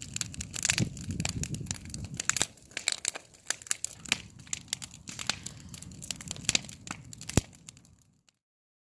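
Rain hitting a roof: a dense, irregular crackle of sharp ticks over a low rumble, which stops abruptly near the end.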